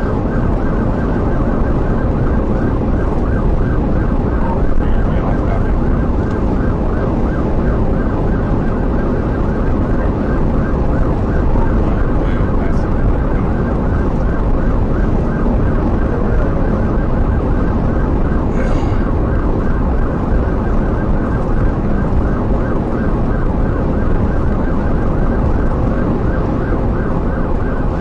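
Police cruiser's siren sounding in a fast, evenly repeating cycle throughout. Under it is a heavy, steady rumble of wind and road noise from driving at about 100 mph.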